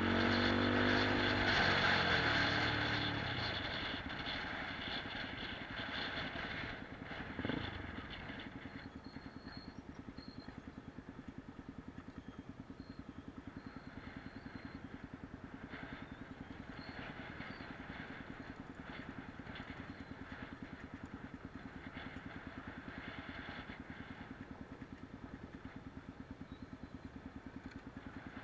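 Motorcycle engine heard from on the bike: its note drops as the throttle closes in the first few seconds, then it runs steadily at low revs with an even pulse. There is a single knock about seven seconds in.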